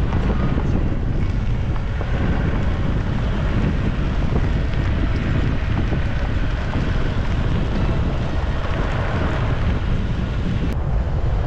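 Wind buffeting a microphone held out of the side window of a moving Toyota Hilux pickup, over a steady low rumble of the truck driving on a gravel track. A single sharp click comes near the end.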